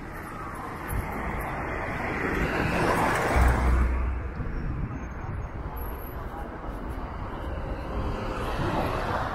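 Outdoor street ambience: a steady rush of traffic with faint voices, swelling about three seconds in as a vehicle passes, with a brief low thump at its peak.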